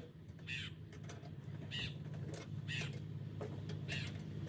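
A bird calling four times, about a second apart, over a steady low hum.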